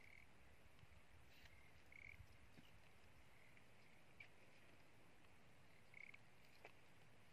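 Faint, brief frog calls: a handful of short high chirps spaced irregularly over a quiet background hiss.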